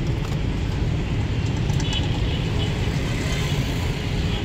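Steady low rumble of street traffic, with engines of passing vehicles running.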